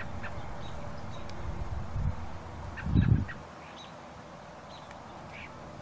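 Short bird calls scattered through the field ambience. About two and three seconds in come two low thumps, the second the loudest thing heard.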